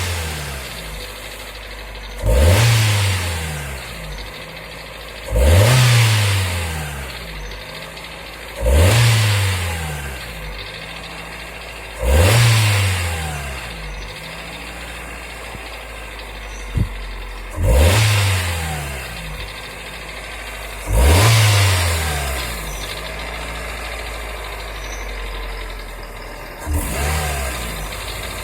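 Car engine idling and revved in short blips about every three seconds, seven times, the last one smaller, each rising quickly and falling back. The revving is done to bring out a knock in the engine.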